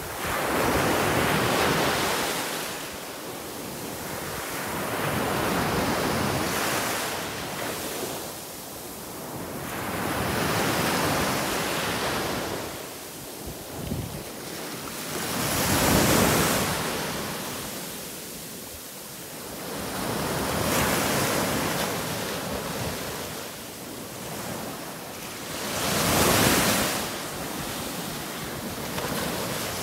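Small waves breaking and washing up a sandy beach, the surf swelling and fading six times, about every five seconds.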